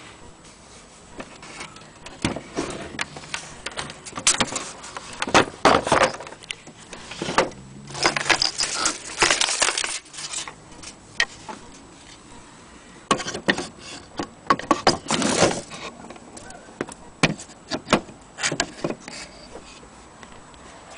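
Handling noise from an empty antique Vienna wall clock case: irregular clusters of clicks, knocks and light rattles, separated by short pauses.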